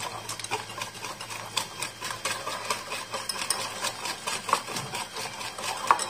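Wire balloon whisk beating cream in a bowl, its wires ticking rapidly and unevenly against the bowl's sides.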